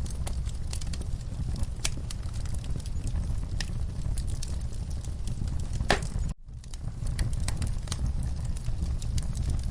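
Wood fire in a fireplace crackling, with scattered sharp pops over a steady low rumble. The sound cuts out for a split second about six seconds in, then resumes.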